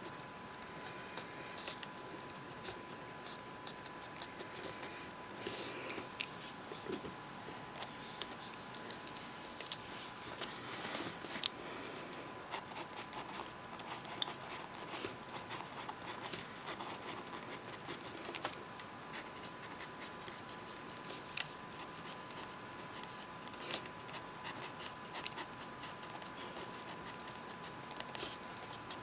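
Handwriting on a lined notebook page: the writing tip scratches across the paper in short, irregular strokes.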